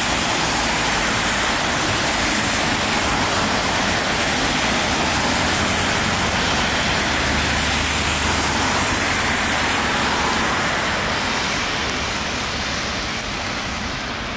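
Road traffic on a rain-wet road: a steady hiss of tyres on wet tarmac mixed with car engines, easing off near the end.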